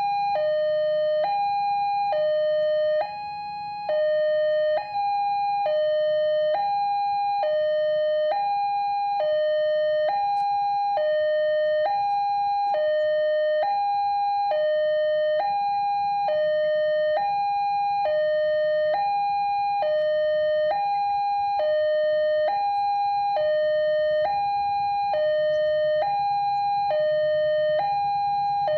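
Railway level-crossing warning alarm sounding a steady two-tone high–low signal, the tones alternating about every 0.7 s. It warns that a train is approaching while the barrier is down.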